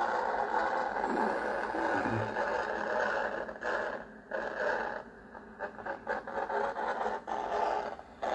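Shortwave radio receiver's speaker giving out a harsh, noisy AM signal from a homemade prototype mixer, the carrier modulated with music. It dips in and out in the second half.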